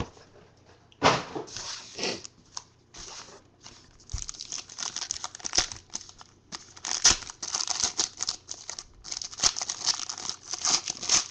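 Foil trading-card pack from a 2012 Panini Playbook football box being handled and torn open, with crinkling and tearing in irregular bursts. The crinkling becomes busier and almost continuous from about the middle on.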